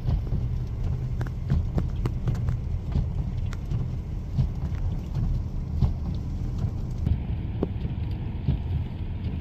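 Wind buffeting the microphone in a steady low rumble, with scattered sharp ticks of freezing rain and ice pellets striking.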